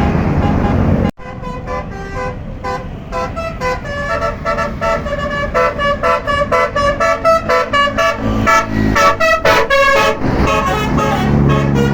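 Basuri telolet multi-tone bus horn playing a quick tune of short toots, each note a different pitch, getting louder in the second half. It follows about a second of loud steady noise with a deep hum that breaks off abruptly.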